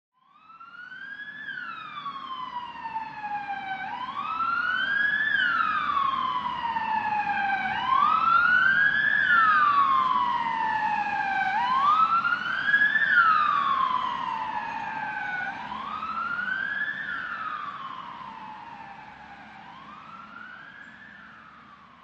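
Ambulance siren wailing, each cycle a quick rise in pitch followed by a slow fall, repeating about every four seconds over a low engine and road rumble. It grows louder until about halfway through, then fades away.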